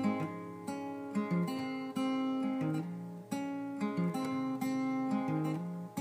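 Acoustic guitar playing alone, picked notes and chords following one another every half second or so and ringing into each other.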